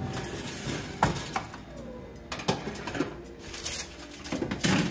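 Cosori air fryer oven's door pulled open and a metal tray of dough slid in onto the rack, making a series of clicks and metal knocks and clatters, busiest near the end.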